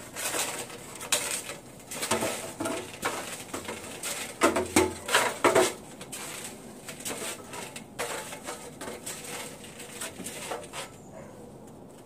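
Winter boots climbing an aluminium extension ladder: irregular knocks and clanks of steps on the metal rungs, loudest in a cluster about halfway through and dying away near the end.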